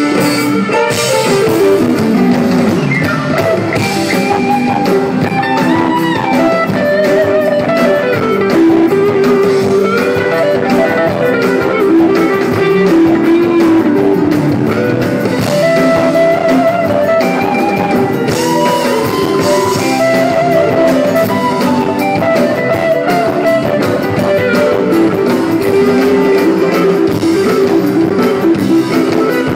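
Live rock band playing an instrumental passage with no singing: guitar melody lines over drums and bass.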